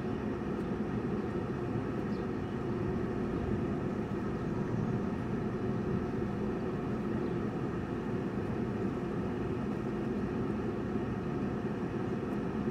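Car driving slowly, heard from inside the cabin: a steady low hum of engine and tyres on the road.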